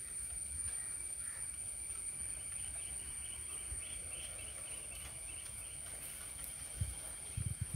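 Rural pond-side ambience: insects keep up a steady high drone, with a patch of rapid chirping in the middle, over a low rumble of wind on the microphone. A few low thumps come near the end.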